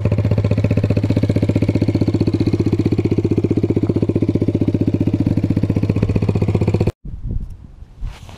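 The 1986 Yamaha Badger 80cc ATV's single-cylinder four-stroke engine runs at a steady speed with an even, rapid pulse. The sound cuts off abruptly about seven seconds in, and a few footsteps follow.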